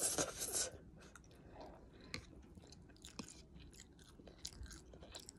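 A person slurping soup noodles into the mouth, a loud hiss that stops within the first second. After it comes chewing with scattered wet mouth clicks.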